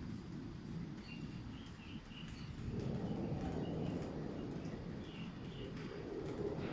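Low steady outdoor rumble that grows louder about three seconds in, with small birds chirping briefly over it.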